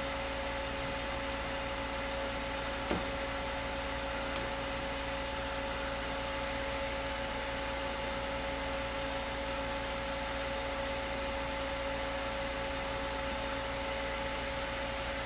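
Steady electrical hum and hiss with a faint steady whine, and a single light click about three seconds in.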